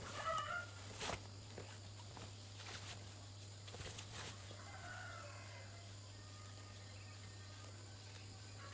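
Chickens clucking, a short call near the start and another about five seconds in, with a few sharp knocks and a steady low hum underneath.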